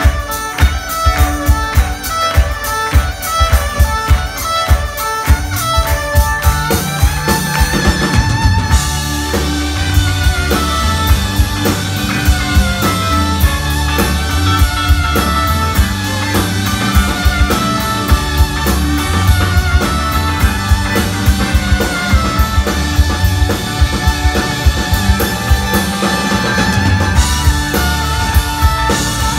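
Live band playing a rock song: violin over acoustic guitar, drum kit and keyboard. About eight seconds in, bass and fuller drums come in and the band plays at full strength.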